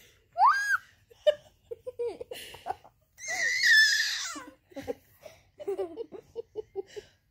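Baby squealing: a short upward squeal about half a second in, then a long, loud, high squeal around three to four seconds in, with giggling and quick bursts of laughter between and after.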